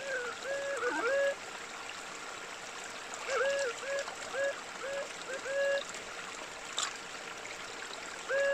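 Metal detector tone sounding in runs of short beeps, each rising then holding, as it responds to stones that give a steady signal, over the steady rush of a creek. The beeps stop about a second in, come back for a couple of seconds, stop again, and resume near the end, with one sharp click in the second pause.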